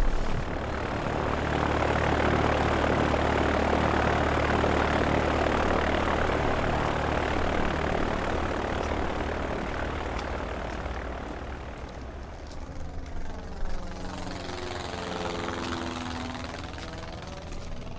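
An aircraft flying past low overhead. Its engine noise swells over the first couple of seconds, then slowly fades, and in the last few seconds its tone sweeps down and back up as it passes. A steady low engine hum runs underneath.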